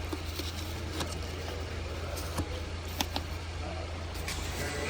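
A few light, scattered clicks and knocks of plastic engine-bay parts being handled as the airbox clips and fittings are worked loose, over a steady low hum.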